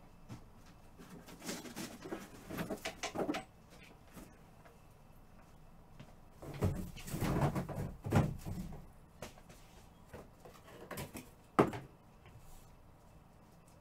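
Trading card packs and boxes being handled on a table: two stretches of rustling and clicking, and a single sharp knock near the end.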